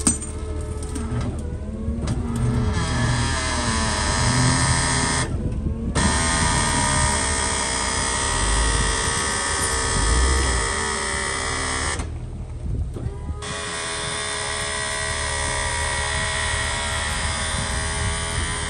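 Tow truck running with its hydraulic wheel-lift under the car: a steady mechanical whine over a low engine rumble, the higher part cutting out briefly three times.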